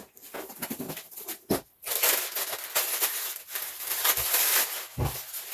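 Parts packaging being handled: a cardboard box flapped open with small knocks and rustles, then a plastic bag crinkling steadily from about two seconds in until near the end as a part is pulled out of it.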